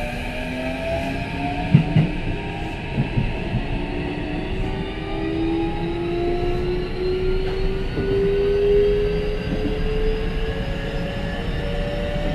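Inside a Keikyu 1500-series train under power, its Mitsubishi IGBT-VVVF inverter and traction motors whining in several tones that rise steadily as the train picks up speed. Under this is a running rumble, with a few sharp clacks from the wheels about two and three seconds in.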